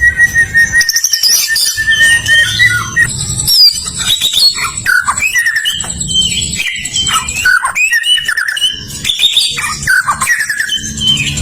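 White-rumped shama singing a fast, varied song of whistles, chirps and trills, with a low rumble underneath.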